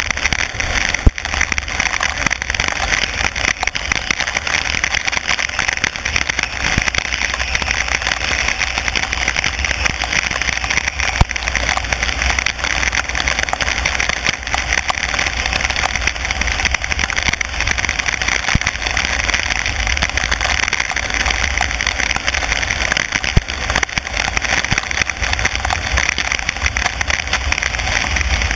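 Car driving on a wet road in heavy rain: a steady hiss of rain and tyre spray over a low rumble, with a few sharp taps now and then.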